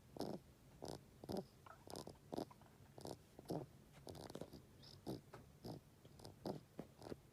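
Elderly rabbit's snore-like breathing: a run of short snorts about twice a second, many falling in pitch. The congestion comes from overgrown teeth pressing on the tear duct and keeping the nose running.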